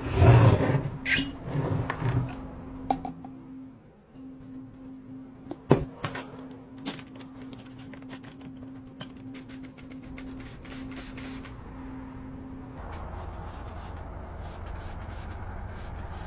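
Door or cupboard being handled: a loud clatter of knocks at the start, then scattered clicks and one sharp knock near six seconds, over a steady low hum that stops near the end.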